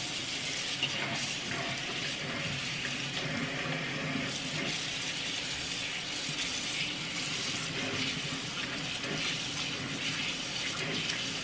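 Kitchen faucet running steadily into a stainless steel sink while a stirring utensil is rinsed under it.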